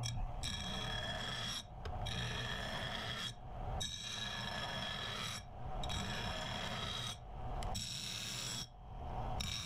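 A hand file rasping along the edges of steel flat bar to take off the sharp edges. It goes in about six even strokes of a second or more each, with short breaks between them.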